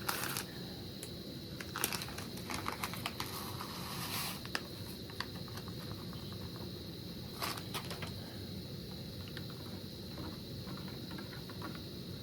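Scattered light clicks and crinkling from cooking gear and packaging being handled while soup cooks, over a faint steady background hum.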